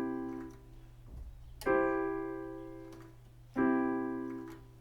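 Piano playing a C major chord, struck twice about two seconds apart and each left to ring and fade, with the tail of the previous strike dying away at the start.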